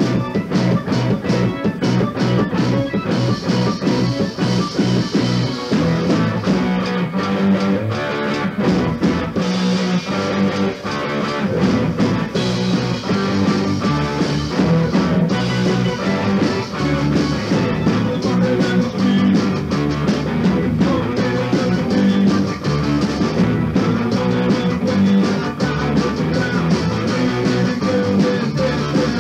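Rock band playing an instrumental passage, guitar over a steady drum beat.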